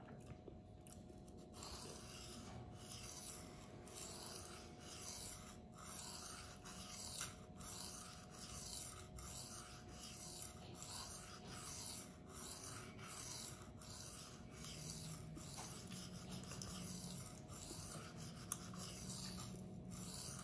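Knife blade of 14C28N steel being slid back and forth across a coarse Venev resin-bonded diamond sharpening stone with light pressure: a steady run of scraping strokes, roughly one every three quarters of a second, starting about a second and a half in.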